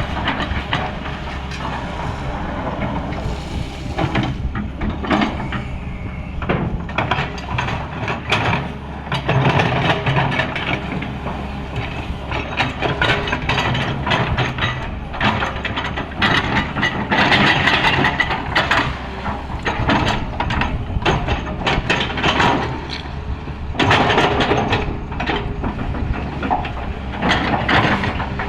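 Sany 215 excavator's diesel engine running steadily under load, with frequent short knocks and scrapes from the machine working.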